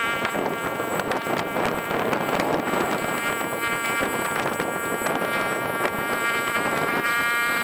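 Small gasoline engine of a wheel-line (side-roll) irrigation mover running steadily as it rolls the line across the field, heard as a thin, even buzz, with some wind noise on the microphone.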